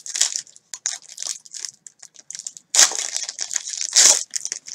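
Foil trading-card pack wrapper crinkling as it is handled and torn open, with two louder rips about three and four seconds in.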